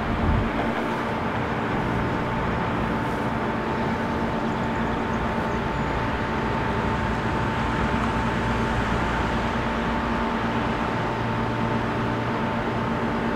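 Steady rumble of a freight train and road traffic, with a constant hum and a brief low thump just after the start.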